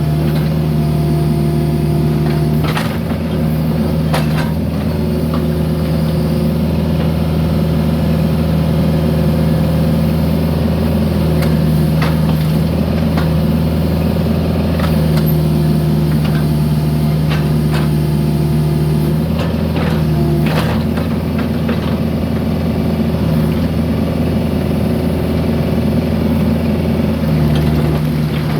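Mini excavator's diesel engine running steadily under varying hydraulic load, its tone stepping up and down as the controls are worked, with a few sharp knocks from the work with broken concrete.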